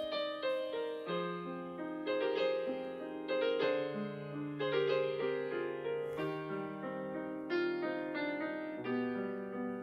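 Background piano music, a melody of notes played in steady succession over a lower bass line that comes in about a second in.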